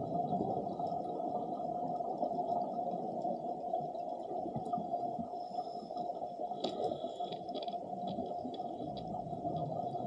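Steady underwater ambience heard through a camera's waterproof housing: a dense bubbling crackle from scuba divers' exhaled bubbles. A few faint higher ticks come about seven seconds in.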